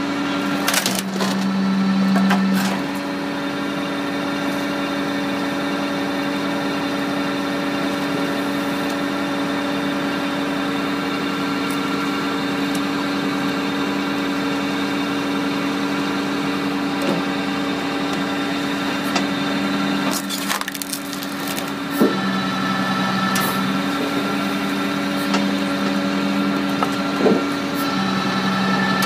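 Tractor-powered Logger firewood processor running steadily, its engine and hydraulics giving a constant drone, with a lower hum swelling in a few times as it works. Sharp cracks and knocks of hardwood logs being split and falling come through, most in the last third.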